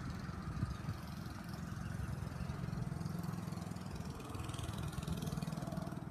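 Mini bike's small engine running off camera, its level rising and falling a little.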